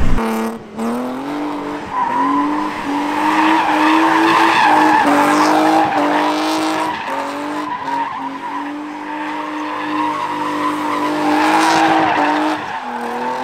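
BMW E36 sedan drifting: its engine is held at high revs, rising and dipping a little, while the tyres squeal and skid. The revs drop away near the end.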